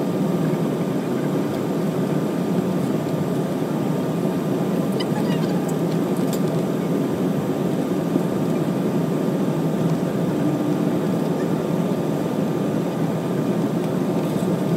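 Jet airliner cabin noise while taxiing to the runway: a steady even rush of engines and airflow, with a thin steady whine running through it.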